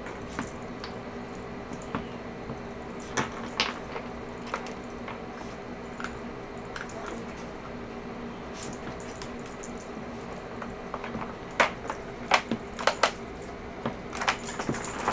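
Scattered plastic clicks and clatter as a puppy noses and paws at a plastic dog puzzle toy, nudging its sliding segments and bone-shaped pegs. The clicks are sparse at first and come more often and louder near the end.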